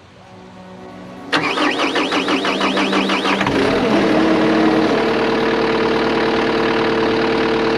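Cat 320 excavator's diesel engine cranking with a rhythmic pulse about five times a second, catching after about two seconds, then settling into a steady run.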